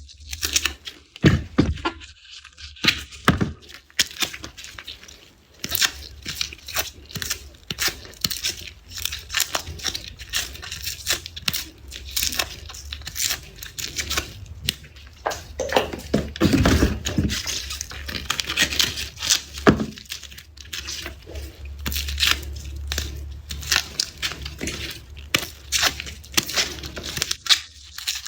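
Dry, papery garlic skins being peeled and torn off the cloves: a dense, irregular run of crisp crackles and crinkles.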